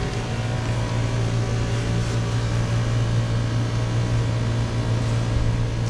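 Steady low machinery hum under an even hiss, the constant drone of a shop's cooling or ventilation equipment.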